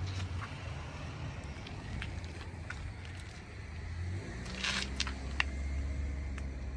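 Daihatsu Tanto Custom (L375S) three-cylinder 660 cc engine running at idle, with scattered ticks and clicks over a steady low hum. The hum drops to a lower pitch about four seconds in. The engine is one with an abnormal noise.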